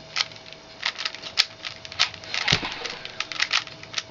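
Plastic Rubik's Cube being turned quickly by hand: rapid, irregular clicking and clacking of the layers, several clicks a second, with a single dull thump about two and a half seconds in.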